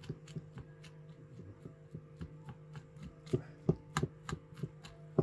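Metal teaspoon scraping fresh pike roe out of its membrane sac into a bowl: a run of short clicks and scrapes, a few a second, louder about three to four seconds in, over a steady low hum.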